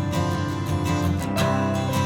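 Background music: acoustic guitar picking and strumming at a steady pace.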